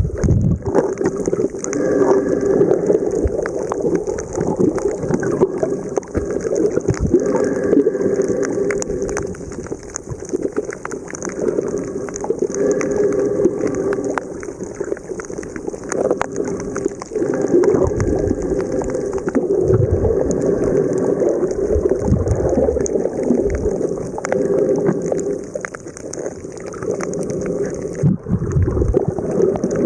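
Water noise picked up underwater while snorkeling over a reef, with steady crackling clicks and sloshing that swells and eases every few seconds.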